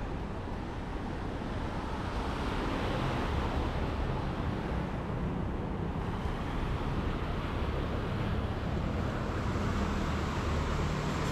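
Ocean surf washing in, swelling about two seconds in and again near the end, over a steady low rumble.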